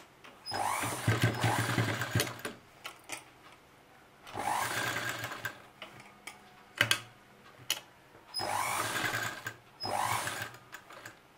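Juki sewing machine stitching in four short bursts of a second or two each, with a few sharp clicks in the pauses between them.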